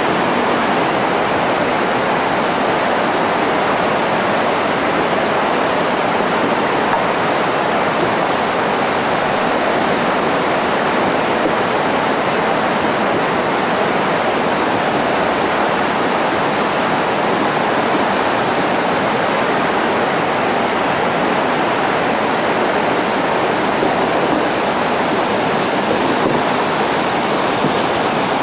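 Loud, steady rushing of whitewater rapids: churning water over rocks, unbroken throughout.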